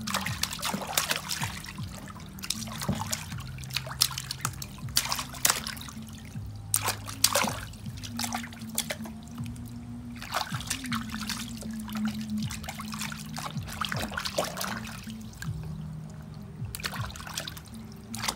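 Water splashing and trickling in a plastic basin as a baby is bathed, with irregular splashes from hands moving through the water. Background music with steady held low notes runs underneath.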